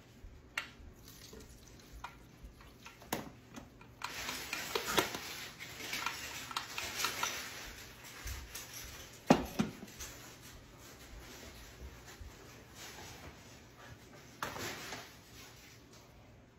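Freshly churned butter and buttermilk being tipped and scraped out of a plastic KitchenAid mini food-processor bowl into a mesh strainer over a plastic tub: soft squishing and pouring with light plastic and metal clicks. There is one sharp knock about nine seconds in and a short rustle near the end.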